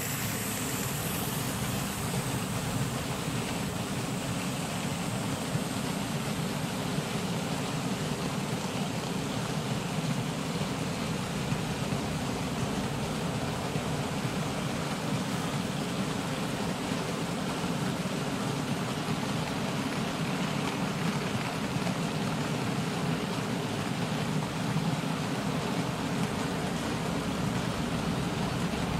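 Model railway freight wagons rolling past on the track, a steady rushing noise of wheels on rail with no break.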